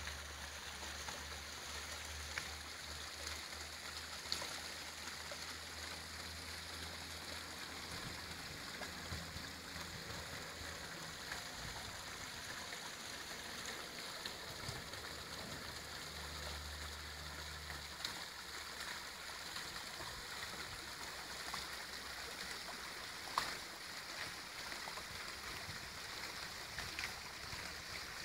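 Artificial rock waterfall running, with a steady rush and splash of water falling into its pool. A low hum comes and goes underneath, and there is one sharp click about two-thirds of the way through.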